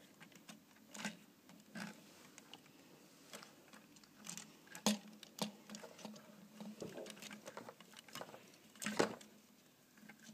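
Plastic Lego pieces being handled, faint irregular clicks and taps, with a sharper knock about nine seconds in.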